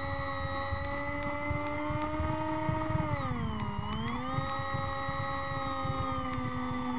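Motor and propeller of a radio-controlled seaplane running as it taxis on water: a steady pitched drone that drops in pitch about three seconds in and climbs back a second later, over a low rough rumble of water and wind.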